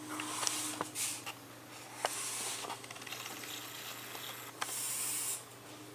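Pencil scratching across a sketch-pad page, drawing straight lines in several separate strokes of up to about a second each, with a few light ticks of the lead touching down.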